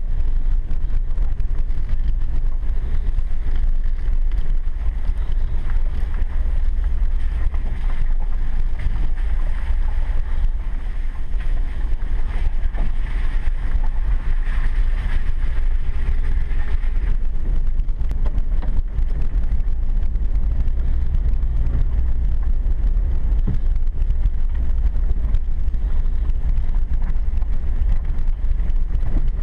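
Vehicle driving along a dirt road, heard from inside the cab: a steady low rumble of engine and road noise, with a hiss that swells for a few seconds around the middle.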